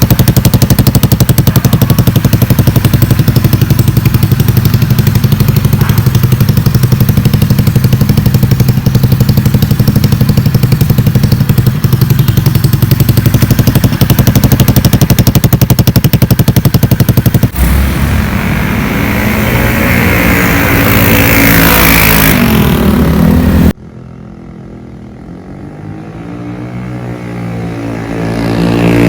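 Motorstar Easyride 150 single-cylinder engine running very loud through a conical aftermarket exhaust pipe, idling steadily at first. After about 17 seconds there is a cut and it revs up with rising pitch. Near the end another run grows louder and rises in pitch as the bike accelerates.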